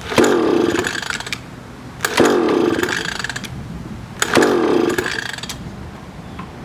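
Small 3.5 hp outboard motor being pull-started three times, about two seconds apart: each pull of the recoil starter cord cranks the engine with a brief whirring rush that dies away, and the engine does not fire.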